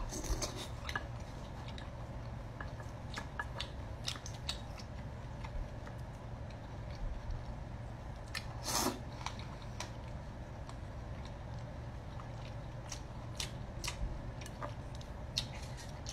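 Scattered clicks and scrapes of food-stall utensils, with one louder rustling burst about nine seconds in, over a steady low hum.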